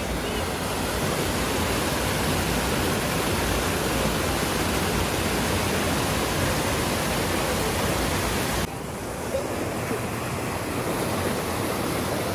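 Water pouring over a small weir and churning in the pool below: a steady, loud rush. A little under nine seconds in it drops abruptly to a softer, duller rush of churning water.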